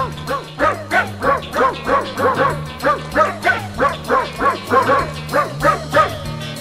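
Three-week-old border collie puppies squealing, a quick run of short rising-and-falling yelps about three a second, over background music with a steady bass line.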